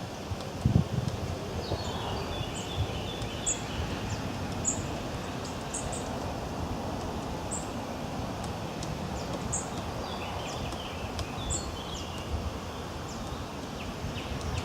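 Birds calling outdoors: short, high, thin notes repeated every second or two, with bursts of twittering, over a steady hiss of wind and rustling leaves.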